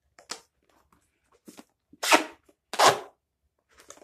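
Duct tape ripped off the roll and wrapped around a cardboard mailing box: a few faint rustles, then two loud tearing pulls about two and three seconds in.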